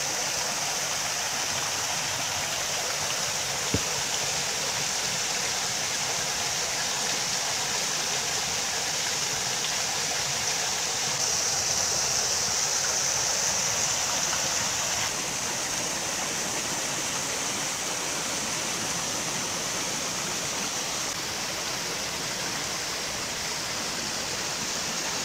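Small creek waterfall pouring into a pool: a steady rush and splash of falling water.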